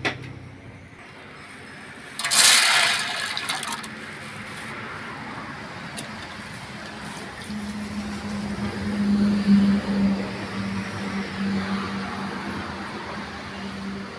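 Dried chickpeas poured into an aluminium pot with a short loud rattle about two seconds in, then water poured in over them from about halfway through, splashing for several seconds: chickpeas being put to soak.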